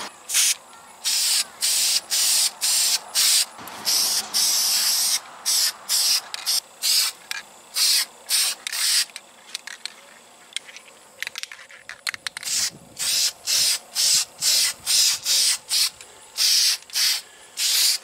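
Aerosol spray paint can spraying in many short hissing bursts, a few a second, with brief gaps between and a sparser lull around the middle.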